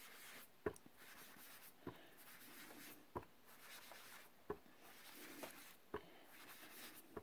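Faint scrubbing of a sponge dauber pouncing ink onto cardstock and picking up ink from an ink pad, with a light tap a little more than once a second.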